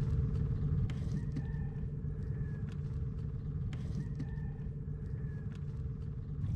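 Roosters crowing faintly, about three crows of roughly a second each, over a steady low rumble and a steady hum that stops near the end.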